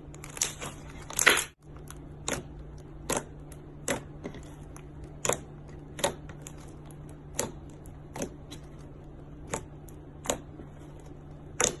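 Slime being pressed and worked, giving sharp pops and clicks about once a second, with a quicker, louder run of crackles in the first second and a half.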